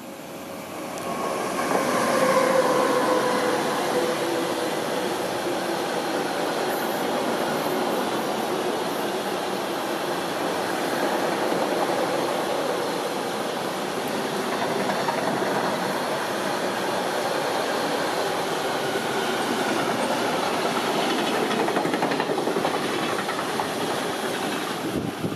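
Freight train passing close by at speed: an ÖBB electric locomotive goes by about two seconds in with a slightly falling whine, followed by a long, steady rumble and clatter of the wheels of double-deck car-carrier wagons on the rails.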